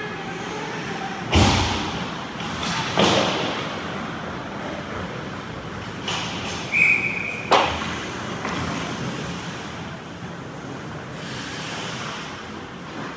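Ice hockey rink play: three sharp knocks of puck or sticks against the boards, about a second and a half apart at first, then one more a few seconds later, over steady arena noise. A short high tone sounds just before the last knock.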